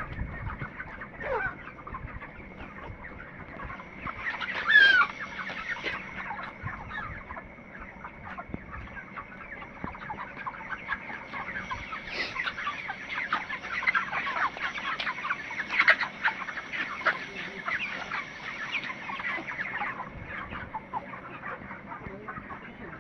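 A flock of 29-day-old broiler chickens clucking and chirping continuously, with one loud squawk about five seconds in. A faint steady high tone runs underneath.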